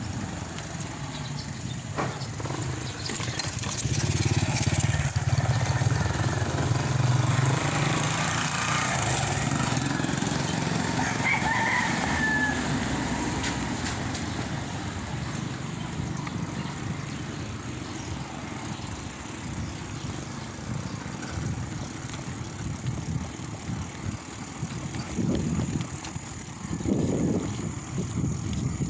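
Wind rumble on the microphone and road noise from a bicycle being ridden, louder for several seconds in the first third. About eleven seconds in, a rooster crows once, briefly.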